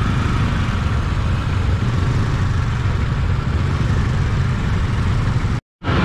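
Motorcycle engine running low and slow in dense traffic, a steady low rumble mixed with the engines of the motorbikes and cars around it. The sound cuts out for a moment near the end.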